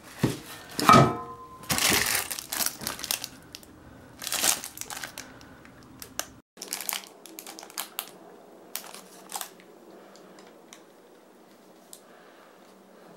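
Plastic packaging crinkling and rustling as metal fittings are unpacked, with a ringing metallic clink about a second in. Later come fainter, scattered crinkles from a small plastic bag of screws.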